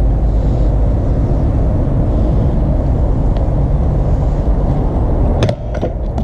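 BMX bike rolling on a concrete skatepark with a loud, steady low rumble, then several sharp knocks about five and a half seconds in as the bike strikes the ramp during a double peg stall attempt.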